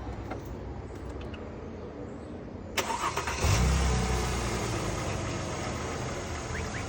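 A 2010 Mercedes GLK 350's 3.5-litre V6 being started: a click and brief starter cranking about three seconds in, then the engine catches and runs at a raised idle that eases off a little. This is a restart after new spark plugs and an ignition coil were fitted for a cylinder 2 misfire.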